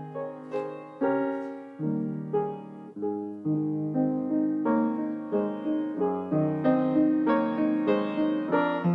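Solo piano music: notes struck over held chords, each dying away, with the notes coming a little faster in the second half.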